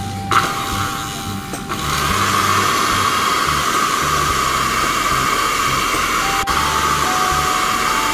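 Standard electric blender, fitted with a new blade and gear set, running with water in the jar: a steady motor whir that gets louder from about two seconds in and holds. Background music with a low beat plays underneath.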